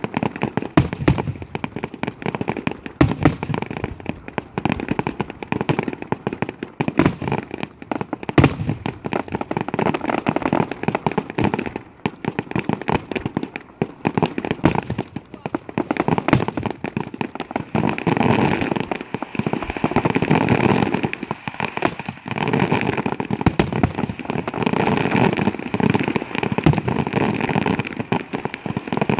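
Aerial fireworks going off in a dense string of crackling pops, with sharp single bangs standing out every few seconds and the barrage thickening in the second half.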